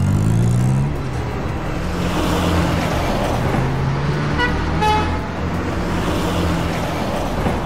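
Cartoon vehicle engine sound effects: engines running, revving up with a rising pitch in the first second, with a short horn toot about halfway through.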